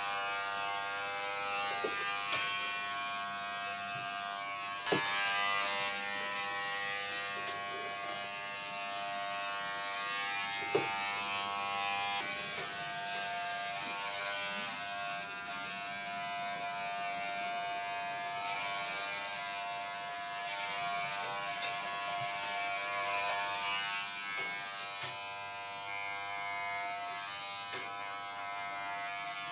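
Corded WAHL Pet-Pro electric pet clipper running with a steady buzz as it shears a small dog's long coat short, a 6 mm guide comb fitted. Two brief knocks come about five and eleven seconds in.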